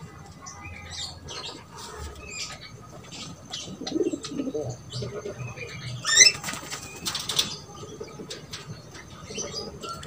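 Birds' wings flapping in flight, loudest in two flurries about six and seven seconds in, among scattered chirps and a soft, low cooing of pigeons.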